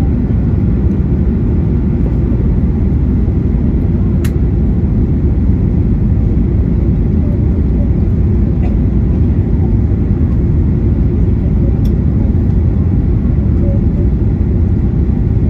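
Steady cabin noise inside a Boeing 737-800 on approach with flaps extended: the drone of its CFM56-7B engines and the rush of air over the fuselage, mostly low in pitch. A sharp click about four seconds in, and a fainter one near twelve seconds.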